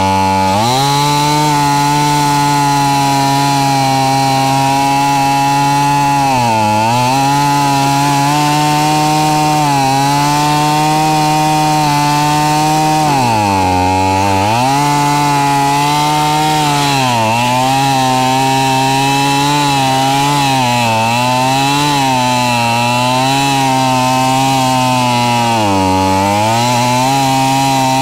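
Two-stroke gas chainsaw running flat out on straight pump gas with no oil mix and no air filter, its engine speed sagging and picking back up several times.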